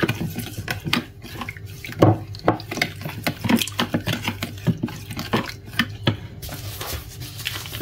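Wooden spoon stirring water in a plastic bowl, with irregular knocks and scrapes of the spoon against the bowl.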